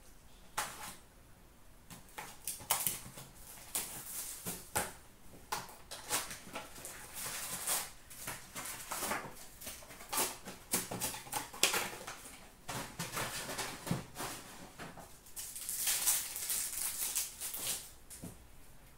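Hockey card packs being opened by hand: pack wrappers torn and crinkled, the cardboard box and cards handled, as an irregular run of rips, rustles and light taps, busiest in a long crinkling stretch near the end.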